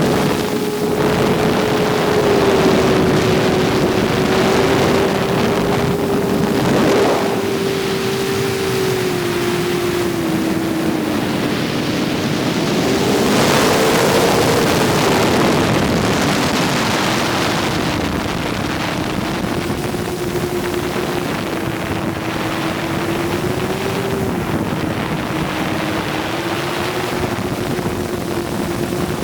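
FPV drone motors and propellers whining at a steady, slowly drifting pitch as the throttle changes, with wind rushing over the microphone. The rush swells briefly twice, the second time about halfway through.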